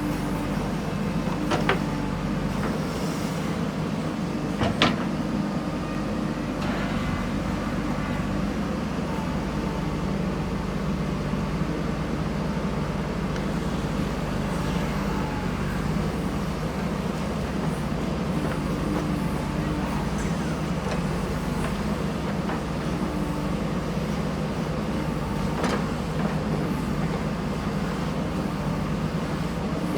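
JCB 3DX backhoe loader's diesel engine running steadily under work. Three sharp knocks stand out: two early on, the louder about five seconds in, and one more near the end.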